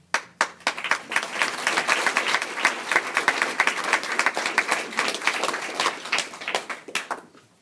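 Audience applauding: a few separate claps that quickly swell into dense, steady clapping from a roomful of people, thinning out and dying away near the end.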